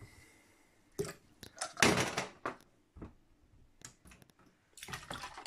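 Stones tipped out of wet paper cups knocking onto a stainless-steel sink, with water spilling. There are several separate knocks and two short noisy spills, the louder one about two seconds in.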